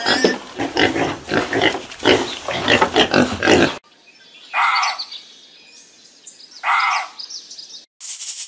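Animal grunting in a rapid stream, cutting off about four seconds in; then two short separate animal calls about two seconds apart, and a steady hiss starting just before the end.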